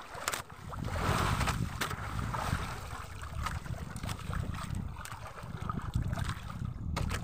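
Wind buffeting the microphone over choppy sea water sloshing against a small fishing boat's hull, with a few light knocks and splashes scattered through.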